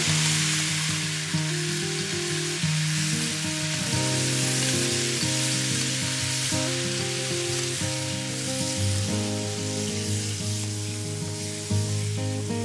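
Chicken pieces sizzling in a carbon steel frying pan as chilli fire chicken sauce goes in and is stirred through with a wooden spoon. Soft background music with held notes plays underneath.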